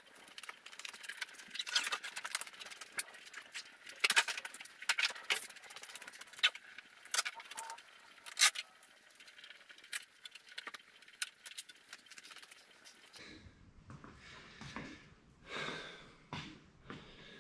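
Rustling with many light clicks and rattles as packing foam and kit parts are handled in a wooden shipping crate. About 13 seconds in it gives way to duller knocks and rumbling as the camera is handled.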